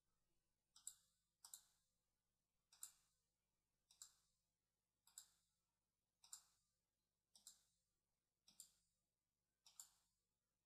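A string of faint computer mouse clicks, roughly one a second.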